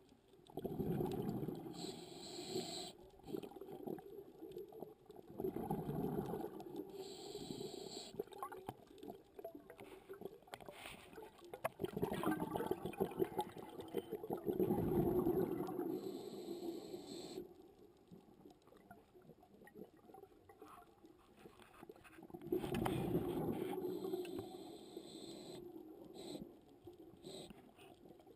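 A scuba diver breathing underwater: bubbling exhales in four bursts several seconds apart, each followed by a short hiss of the regulator, the third exhale long.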